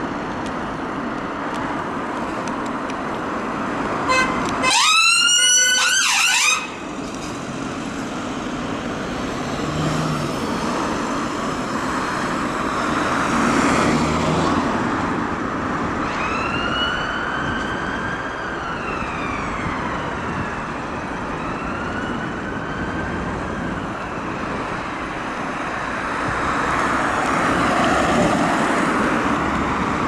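Volkswagen Crafter ambulance's siren over steady road traffic: a loud run of quick rising yelps, about three a second, about four seconds in that cuts off abruptly, then later a slower, fainter rising and falling wail as the ambulance moves away.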